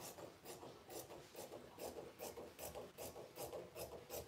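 Small scissors snipping through fabric, trimming a seam allowance down: a steady run of short raspy cuts, about two or three a second.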